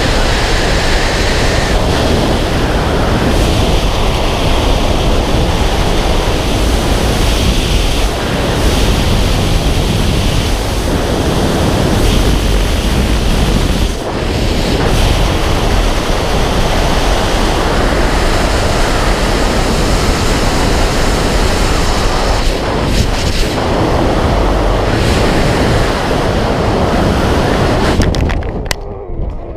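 Freefall wind rushing hard over a helmet camera's microphone, a steady loud roar of air. Near the end it suddenly thins and drops as the skydiver's parachute deploys and the fall slows.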